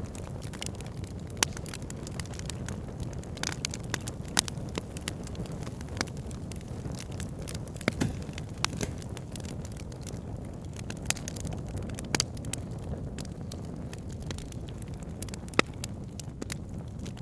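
Fire burning with a steady low rumble and irregular sharp crackles and pops, a few of them much louder than the rest.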